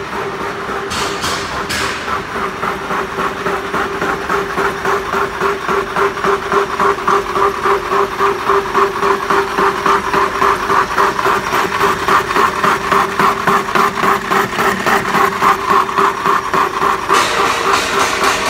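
San Rocco MEC 80 horizontal boring machine running under cut, with a steady motor and gearbox hum. Over it is an even, rhythmic pulsing of a few beats a second from the spindle cutting metal, which grows stronger a few seconds in. Two brief hissy bursts come near the start and near the end.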